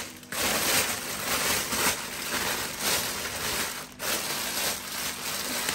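Continuous crunching and crinkling with many small uneven pulses, pausing briefly about four seconds in.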